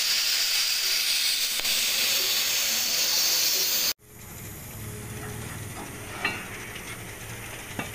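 Plasma cutting torch on a profile cutting machine running with a loud, steady hiss as its arc cuts through steel plate. About four seconds in it stops abruptly, leaving a quieter low background with a couple of light knocks near the end.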